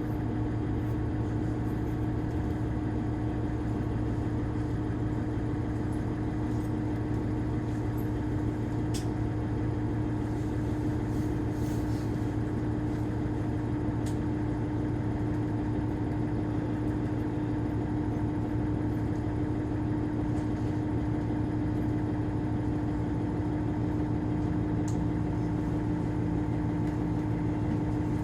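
Diesel railcar engine idling steadily, a constant hum with a strong low steady tone and no change in speed.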